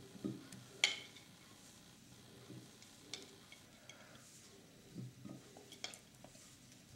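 Faint, scattered light clicks and taps of small onion pieces being set by hand into a glass salad bowl, with a ceramic plate being handled; the sharpest click comes about a second in.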